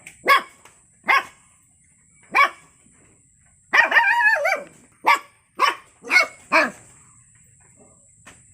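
Puppy barking in high, short yaps: three spaced barks, a longer wavering yelp about four seconds in, then four quick barks in a row.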